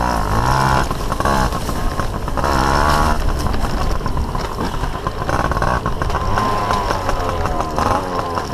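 Yamaha PW80's small two-stroke single-cylinder engine, ridden off-road, revving up and dropping back several times as the throttle is worked.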